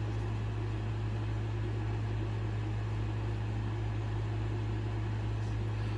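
Steady low hum with an even hiss underneath, unchanging throughout: constant background machine or electrical noise.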